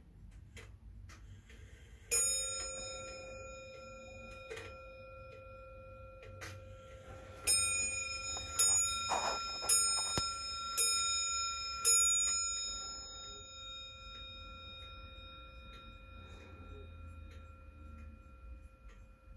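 Comtoise wall clock striking its bell: a single ringing strike about two seconds in, then five strikes about a second apart, each ringing on and fading, over the steady ticking of the pendulum movement.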